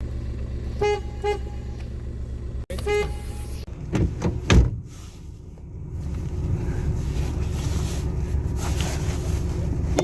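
A Nissan car horn tooted twice in quick short beeps about a second in, and once more near three seconds. Then a few loud knocks and a steady low rumble, with the 2013 Renault Clio's horn sounding right at the end.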